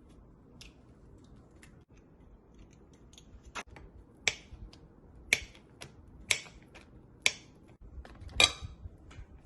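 Eggs being cracked against the rim of a mixing bowl: a series of sharp taps and clicks, roughly one a second, the loudest near the end.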